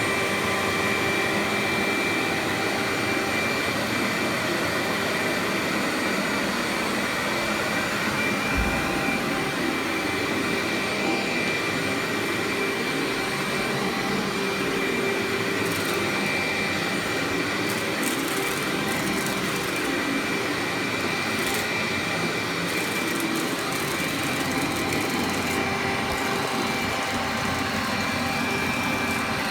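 Workhorse vacuum cleaner running steadily on carpet, a constant motor and airflow noise with a steady whine, with short crackles from about halfway on.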